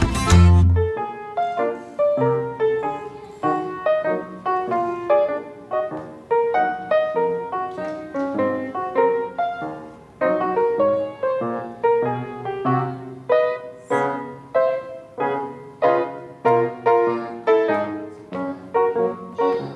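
Piano music: a quick melody of separate struck notes. It follows a louder, bass-heavy passage that cuts off about a second in.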